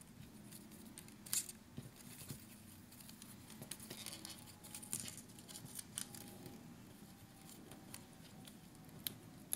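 Faint crinkling of copper foil tape's paper backing being peeled off, with scattered small clicks and rustles as fingers press the tape down onto card stock around a corner.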